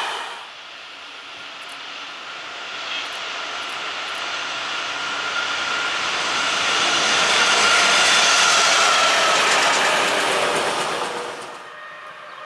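The last of a passing train dies away at the start; then an approaching train's running noise, a rush with a steady whine in it, grows steadily louder, peaks about two-thirds of the way in, and drops away sharply near the end.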